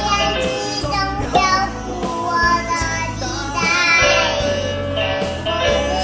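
A young girl singing a song over a recorded backing track with a steady bass line, her voice wavering in pitch on held notes.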